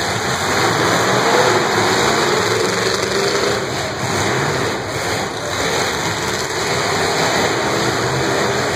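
Several demolition derby cars' engines running and revving, over a loud, even din.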